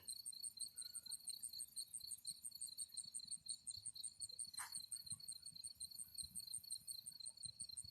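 Crickets chirping faintly in a fast, even pulse, with one short falling squeak about halfway through.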